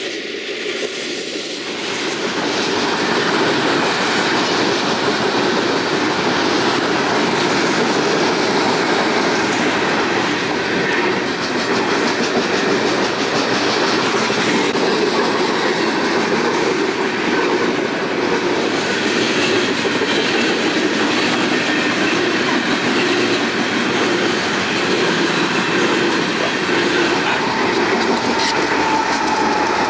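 Union Pacific coal train's steel hopper cars rolling past at speed: a steady rumble of wheels on rail with rapid clickety-clack over the rail joints. Near the end a diesel locomotive in the train comes by, adding a steady whine over the wheel noise.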